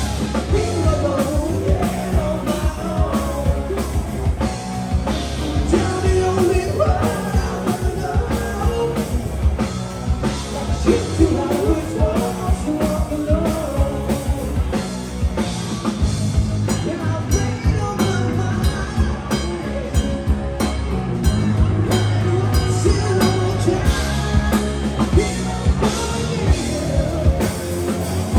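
Rock band playing live: a voice singing over drums and guitar with a steady beat.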